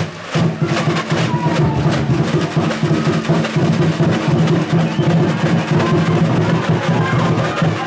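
Drums and percussion playing a fast, steady beat.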